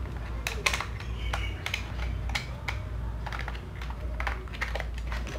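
Irregular plastic clicks and taps as the battery cover is fitted and pressed onto the back of a toy drone's handheld remote control.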